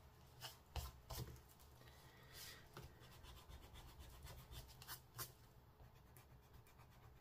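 Faint rubbing on card stock, with a few short scratchy strokes, as stray ink marks are rubbed off the card.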